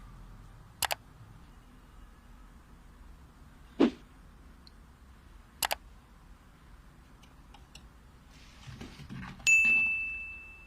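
Three sharp clicks or knocks a couple of seconds apart, then a loud metallic clang near the end that rings on one high note for about a second as it dies away.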